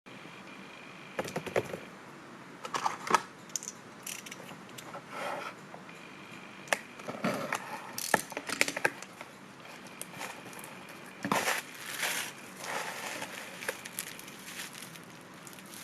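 Irregular clicks, knocks and crinkling rustles of items and their packaging being handled and unwrapped.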